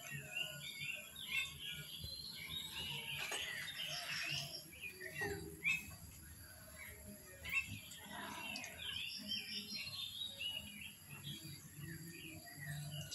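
Small birds chirping and twittering throughout, with short repeated high trills, and a couple of brief light knocks about midway.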